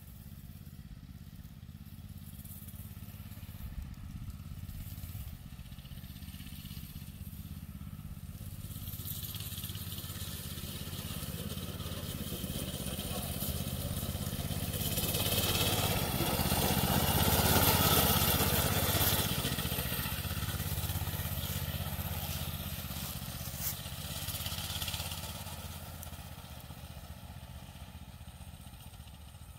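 Coleman BT200X mini bike's single-cylinder four-stroke engine running as the bike rides along the trail toward the camera. It grows louder to a peak about two-thirds of the way through as it comes close, then fades as it moves away.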